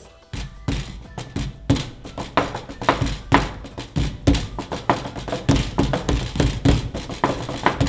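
Two people drumming a rough beat with their hands on a tabletop: quick, uneven taps and thumps, several a second.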